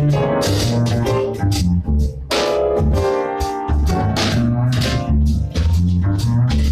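Live jazz played on a grand piano, with a bass line moving underneath and drums keeping time on the cymbals.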